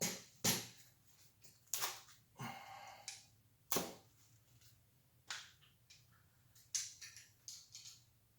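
Sharp clicks and knocks of metal bicycle parts being handled and set down, about eight of them at uneven intervals, one near three seconds in ringing briefly.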